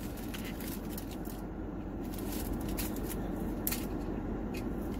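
Plastic lid being pried off a paper cup of rice: a few light clicks and crinkles over a steady low hum.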